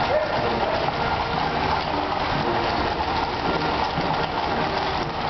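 Many cavalry horses' shod hooves clattering on the street at a walk: a dense, continuous patter of overlapping hoofbeats.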